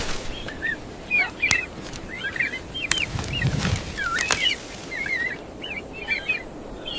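Birds chirping: many short, quick chirps scattered throughout, over a steady background hiss.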